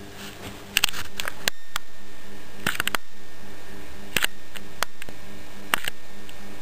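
Camera handling noise: a handful of sharp clicks and taps, irregularly spaced, as the camcorder is moved in close. A steady low hum runs underneath.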